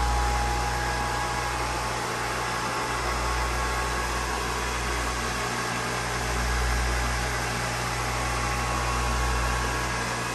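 Steady machinery hum and fan rush in a yacht engine room: an even hiss over a low drone that swells and dips a little.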